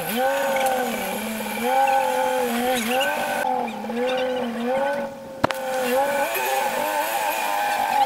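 Jeep rock crawler's engine working under load, its pitch rising and falling again and again as the throttle is worked on a rock climb. A single sharp knock comes about five and a half seconds in.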